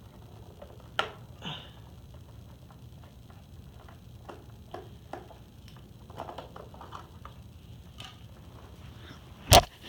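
Scattered small clicks and taps of hands working at the plastic battery compartment in a Robosapien V2 toy robot's foot, with a sharp click about a second in and a loud knock near the end.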